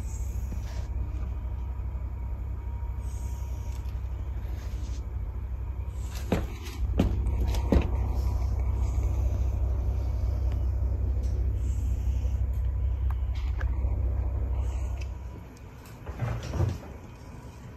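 Steady low rumble, with three sharp knocks a little past the middle as a cat's paws bump against a wall panel; the rumble stops shortly before the end.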